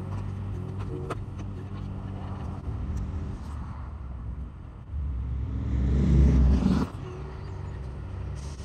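Mini excavator's diesel engine running steadily, with a couple of sharp knocks about a second in. About five seconds in it rises to a louder, deeper rumble for nearly two seconds, then drops back.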